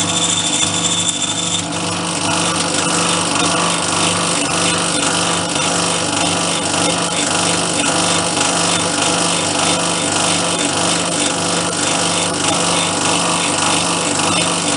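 Metal lathe running steadily under power while a heavy boring bar cuts inside a bore to enlarge it to size. A high whine sounds over the first couple of seconds, then stops while the machine hum carries on.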